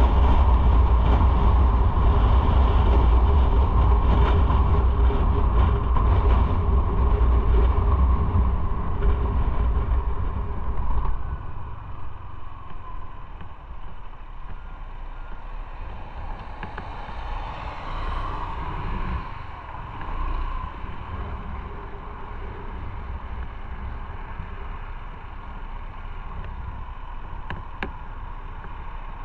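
Motorcycle on the move: a steady rumble of engine and road noise, loud for about the first eleven seconds, then dropping to a quieter steady running as the bike slows.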